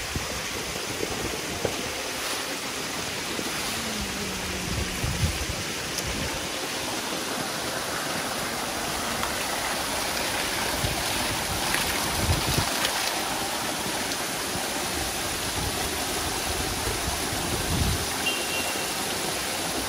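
Steady rush and splash of water pouring from inflow pipes and spraying into a catfish tank crowded with fish, with a few brief low knocks.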